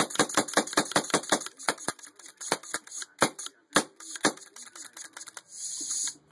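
Autococker paintball marker being fired repeatedly on air: a quick run of sharp clicks, about six a second for the first two seconds, then slower, uneven shots, with a short hiss of air near the end. The marker is failing to cock back properly in semi-auto.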